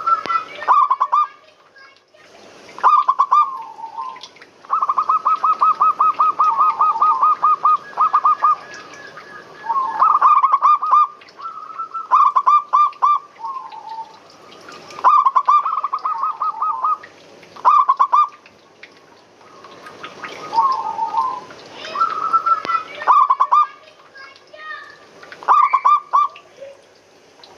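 Zebra doves (perkutut) cooing: repeated phrases of quick staccato notes with short pauses between them, including one long, fast run of notes about five seconds in.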